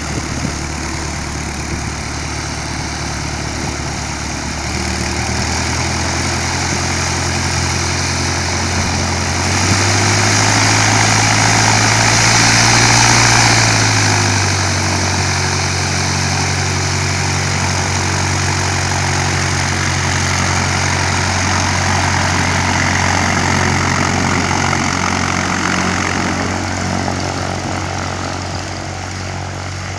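Light propeller training airplane's engine running as the plane rolls past on the ground. It grows louder, is loudest around ten to fourteen seconds in, and its engine note drops as it goes by, then holds steady as it moves away.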